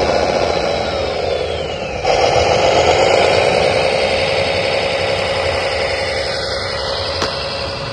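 A motor running steadily with a mid-pitched whine, getting suddenly louder about two seconds in and then slowly fading.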